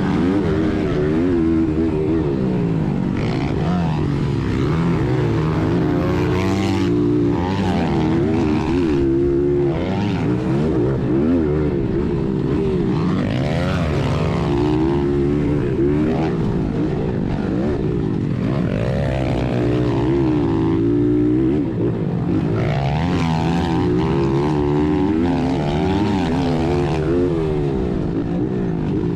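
Honda XR100R's small single-cylinder four-stroke engine ridden hard, revving up and dropping back over and over as the rider shifts and brakes for turns, heard close up from the bike itself.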